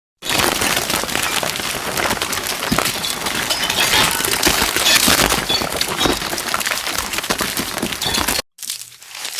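ElevenLabs AI-generated sound effect played back: a loud, dense mass of cracks and clicks that starts abruptly out of silence and cuts off sharply near the end, where a second, quieter generated clip begins.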